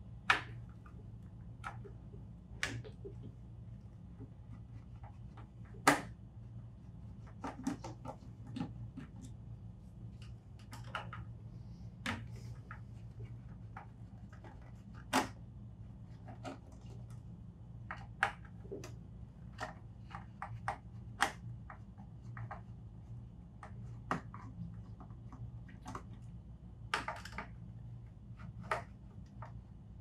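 Hand Phillips screwdriver backing out the screws that hold the control panel on a Pentair IntelliFlo variable-speed pool pump: scattered sharp clicks and ticks from the driver tip and the screws, a few of them louder, over a steady low hum.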